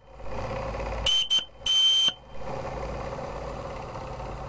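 Model steam boat's boiler whistle blown in three short toots, two quick ones and then a slightly longer one, over the steady running of a Martin Balis twin-cylinder model steam engine.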